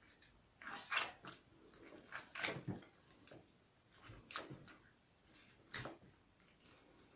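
Knife scraping the scales off a whole fish: short scraping strokes at an uneven pace, the louder ones about every one and a half seconds.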